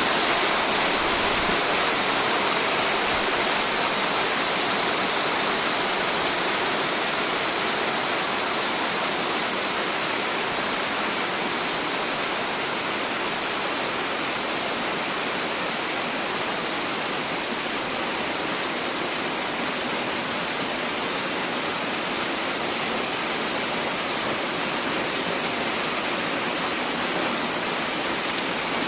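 A tiered mountain waterfall plunging into its pool: a steady, full rush of falling water that eases slightly over the first half.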